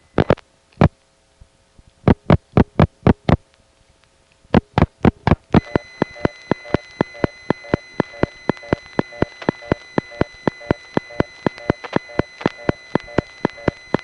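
Telephone line audio from the Laurelton crossbar exchange. Irregular groups of sharp clicks come first over faint steady tones. From about five and a half seconds the line settles into a steady high-pitched squeal with rapid regular ticking, about four or five ticks a second: the squeal that pervades this exchange, heard on a test line that ends in ticking.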